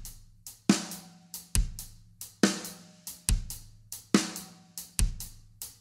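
Acoustic drum kit played in a hip-hop groove: bass drum and snare alternate at an even, unhurried pace, with lighter hi-hat and cymbal strokes between them.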